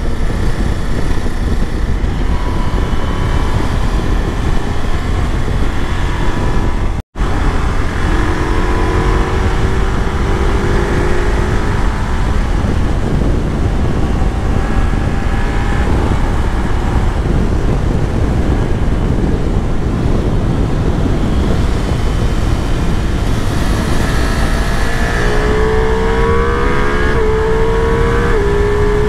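Ducati Multistrada V4S's V4 engine under hard riding: the engine note climbs and falls with throttle and steps at gear changes, over a heavy wind rush. The audio drops out briefly about seven seconds in.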